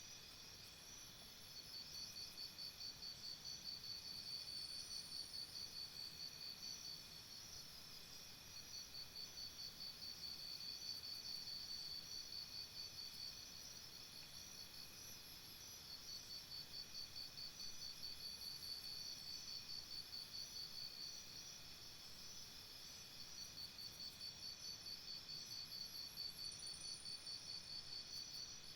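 Insects trilling: a high, fast-pulsing trill in long phrases that break off for a second or two every several seconds, over steady high insect tones.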